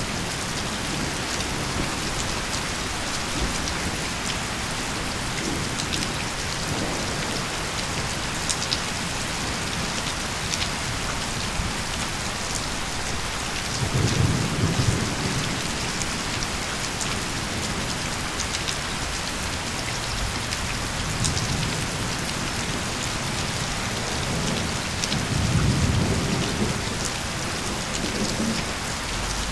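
Steady heavy rain hissing on a surface, with scattered drops ticking, and two low rolls of thunder about halfway through and again near the end.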